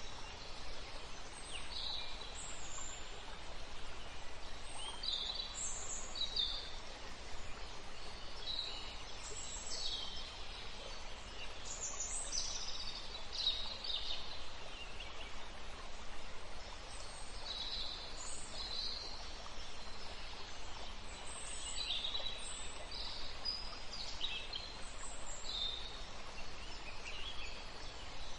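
Birdsong: many short, high chirps and trills from several small birds, scattered throughout over a steady background hiss of outdoor ambience.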